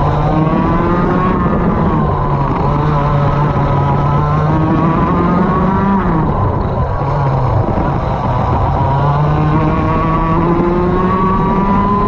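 Racing kart engine at full throttle, its pitch climbing steadily as it gathers speed, dropping sharply once about halfway through as it slows for a corner, then climbing again.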